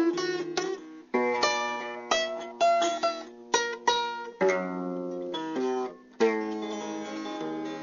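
Music played on a plucked string instrument: single picked notes and chords that ring and fade one after another.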